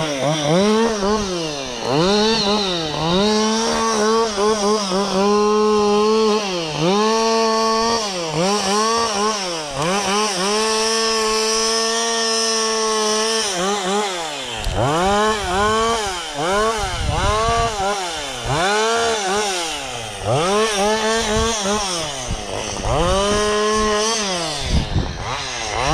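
Two-stroke chainsaw engine revving up and down over and over, its pitch rising and dropping about once a second. Near the middle it is held at full throttle for about three seconds.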